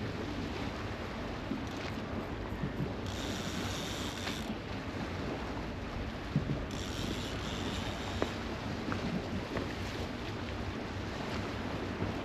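Wind buffeting the microphone over the wash of the sea, with a few light knocks and two short spells of a higher hiss.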